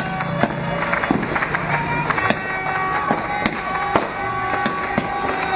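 Street fireworks and firecrackers going off, irregular sharp bangs and crackles about two a second, over music with steady held tones.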